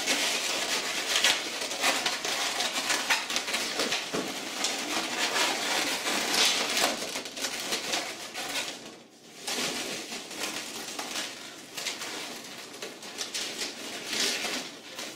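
Latex 260 modelling balloons squeaking and rubbing against each other and the hands as they are twisted and tied together, with a short lull about nine seconds in.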